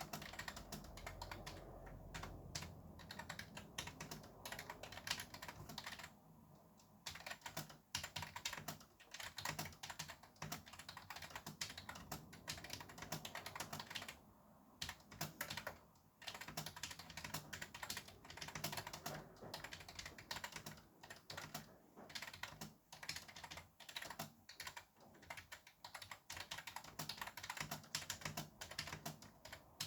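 Fast typing on a computer keyboard: a rapid, continuous stream of key clicks, broken by short pauses about six and fourteen seconds in.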